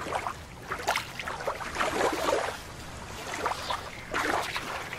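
Shallow water splashing and sloshing in irregular bursts as a small plastic dip net is swept through it to scoop up a toy shark.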